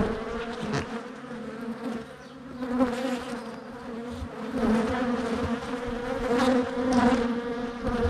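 Honeybees buzzing thickly around an opened hive: a steady droning hum that swells and fades as bees fly close past.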